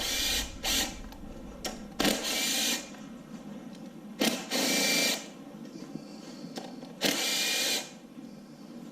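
Cordless impact gun running in several short bursts, each under a second long, backing out the valve cover bolts on a 6.0 LQ4 LS V8.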